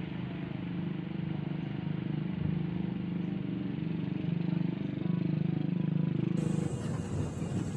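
A steady low rumble. About six and a half seconds in it cuts abruptly to gusty, rushing noise like wind on the microphone.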